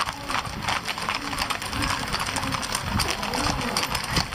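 Several horses' hooves clip-clopping in quick, overlapping steps, with people talking around them.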